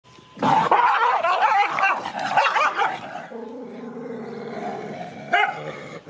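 Two dogs growling and barking at each other in a confrontation, loud and agitated for about three seconds, then a lower, steadier growl with one more sharp bark near the end.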